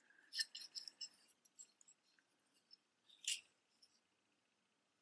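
Faint clinking and light rattling of small metal jewelry being handled, a quick run of clicks at the start and one more brief click a bit past halfway.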